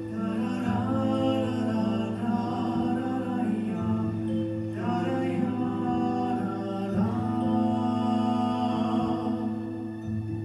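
Music: a singing voice with a wavering pitch, sung in phrases over steady held low drone notes.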